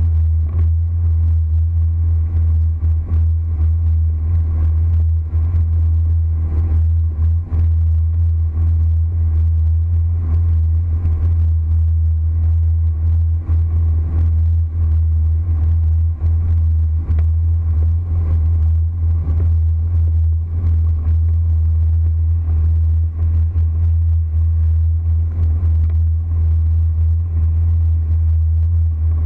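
Motorboat running at speed across open water: a loud, steady low drone, with frequent light knocks as the hull meets small waves.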